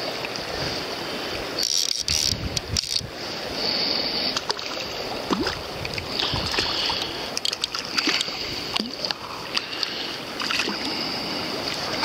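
River current rushing and lapping, with wind on the microphone and a few short sharp knocks and splashes scattered through.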